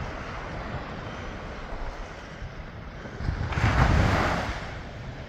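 Small waves breaking and washing up on a sandy shore, with wind rumbling on the microphone. One wave breaks loudest about three and a half to four seconds in, then its wash fades.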